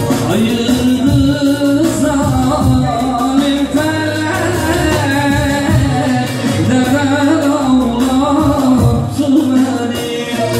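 Man singing a Turkish song through a microphone and PA, in long, wavering held notes over electronic keyboard accompaniment.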